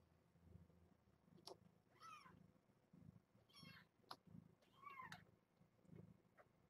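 Three faint, high-pitched mews from a three-week-old kitten, about a second and a half apart, each short and falling in pitch.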